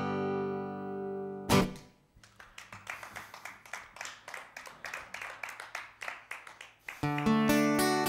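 Acoustic-electric guitar: a strummed chord rings and is cut off sharply about a second and a half in. Then come several seconds of quiet, rapid, muted strumming with no clear notes, and near the end loud rhythmic chord strumming starts, the intro to the next song.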